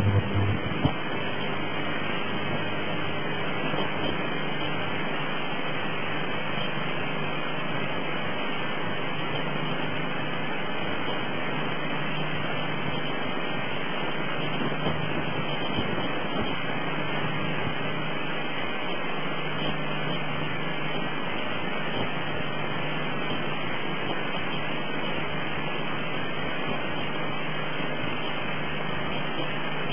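Steady hiss of noise from a worn analogue video tape, with a faint low hum, after a brief glitch in the first second.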